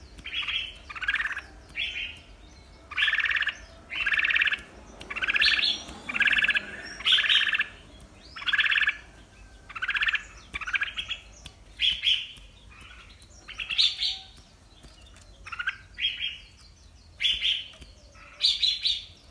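Red-whiskered bulbul singing its loud, warbling challenge song in short repeated phrases, roughly one a second, with brief pauses between them.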